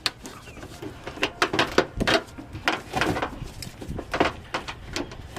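Irregular clicks, clinks and knocks of hand tools being handled, as a 10 mm wrench is fetched and set on the bolt of a quick-release bumper fastener.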